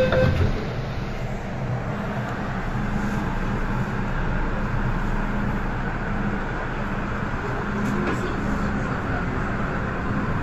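MTR M-train electric multiple unit pulling away from a station, its motors and wheels making a steady running noise as it picks up speed. A door-closing beep stops right at the start.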